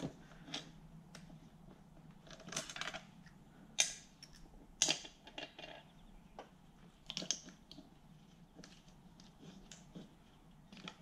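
Throttle body and hand tools being handled on a Toyota 1UZ V8 intake as the throttle body is turned over: scattered faint metallic clicks and clinks, with a few louder knocks a second or two apart.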